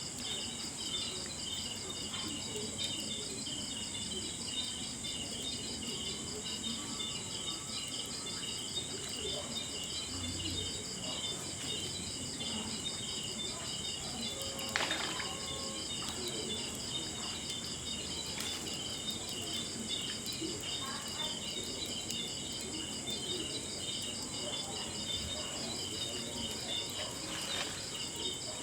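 Steady chorus of crickets and other night insects, high and finely pulsing, over the soft crackle of a burning log fire, with one sharper pop about halfway through.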